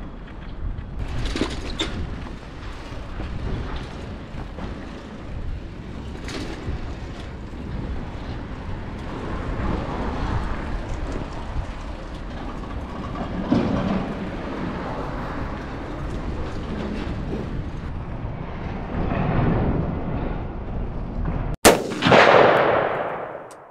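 Uneven outdoor rumble of wind buffeting the microphone, with a few knocks. Near the end comes a sharp click, then a loud impact sound effect that fades over about a second and a half.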